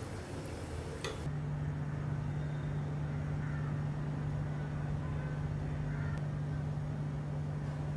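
Spring rolls sizzling as they deep-fry in oil for about the first second, then a cut to a steady low hum.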